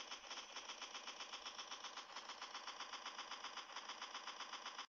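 Machine gun firing one long continuous burst at about nine shots a second, thin with little low end, cutting off abruptly just before the end.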